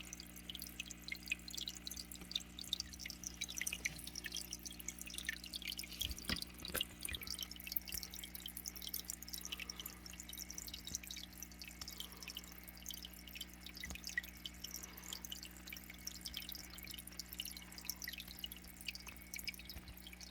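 Water dripping and trickling in a fish tank: a steady stream of small, rapid plinks over a constant low hum.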